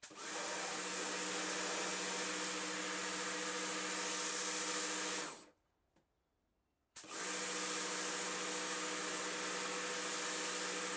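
Kärcher K2 pressure washer running with the gun's trigger held: a steady electric motor and pump hum under the hiss of the spray. The sound stops dead for about a second and a half midway, then resumes unchanged.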